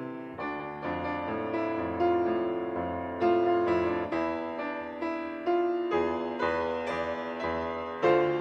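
Grand piano played solo: chords and melody notes struck about every half second over low bass notes, each left ringing, with a louder chord near the end.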